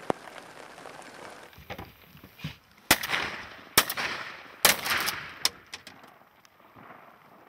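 A volley of shotgun shots fired at ducks: three loud shots about a second apart near the middle, with fainter shots around them, each trailing off in a rolling echo.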